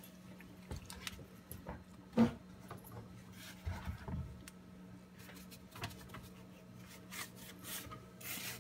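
A dog scrabbling and pawing at bedsheets in play: soft rustling and rubbing of the fabric with scattered small clicks and one sharper thump about two seconds in. A faint steady hum underlies it.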